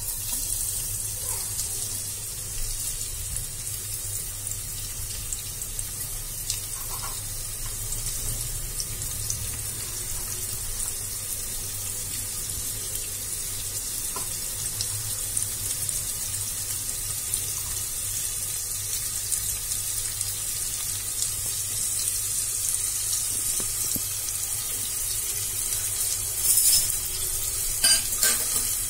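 Sliced onions sizzling in hot oil in a pressure cooker: a steady high hiss, with a few clicks near the end.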